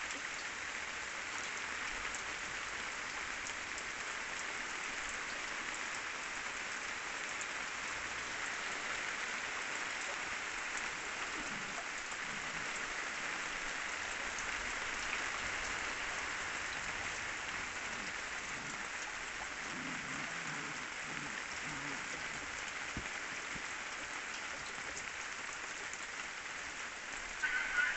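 Steady rain falling, an even hiss that keeps on without change. Right at the end, loud calls from a farm bird break in over it.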